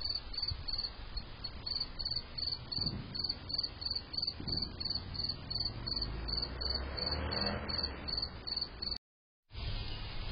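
A cricket chirping steadily, a high-pitched chirp about three times a second, over a faint low hum. It breaks off near the end.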